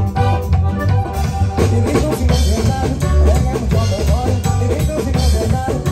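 Live norteño band playing: button accordion melody over electric bass and a drum kit keeping a steady beat.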